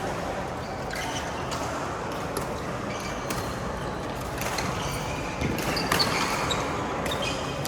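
Badminton rally: irregular sharp hits of rackets on the shuttlecock and other court sounds over a steady background noise, loudest about six seconds in.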